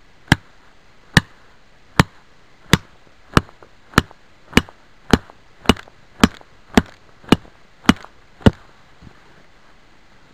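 Wooden stake being driven into the ground with the back of a hatchet: about fourteen sharp knocks, a little under two a second, stopping near the end.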